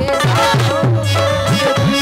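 Tabla playing an instrumental passage between sung lines, its bass drum bending in pitch from stroke to stroke, over a steady held tone.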